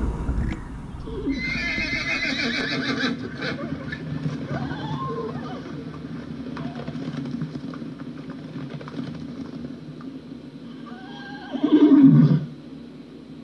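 Horses whinnying: a high, quavering whinny about a second in, and a louder, lower call that falls in pitch near the end.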